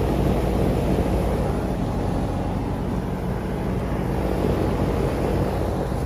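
Outdoor heat pump unit running: the steady rush of air from its condenser fan over a low, even hum from the compressor and fan motor.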